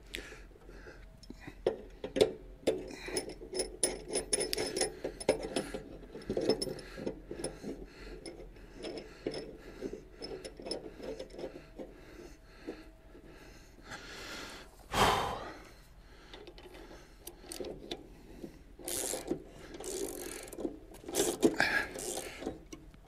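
Metal clinks, clicks and rattles of a three-jaw gear puller being fitted onto the blade hub of a Honda lawnmower and its centre screw turned with a hand tool. A short, loud burst of noise comes about fifteen seconds in.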